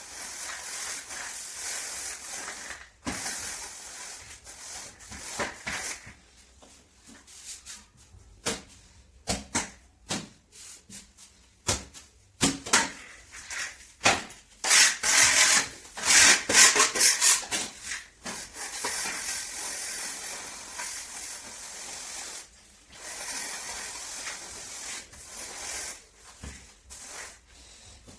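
Irregular rubbing and scraping strokes on a hard surface, with a run of quicker, louder strokes about halfway through.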